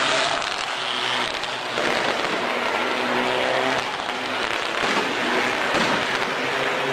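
Rally car engines revving on a stadium circuit, pitch rising and falling, over a steady rushing background noise.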